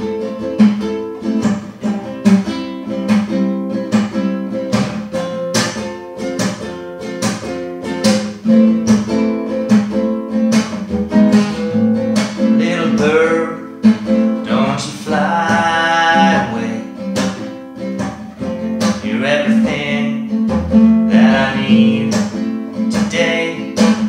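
Acoustic nylon-string classical guitar strummed in a steady rhythm, with a man's voice singing over it from about halfway through.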